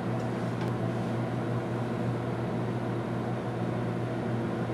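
Steady low hum with a haze of hiss, unchanging throughout, with at most a faint tick about a second in.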